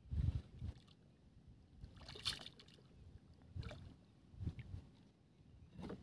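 Water slapping and knocking against a small wooden boat's hull in irregular low thumps, with one brighter splash about two seconds in.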